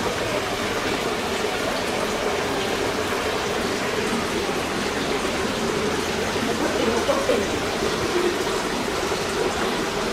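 A steady rushing noise, like running water.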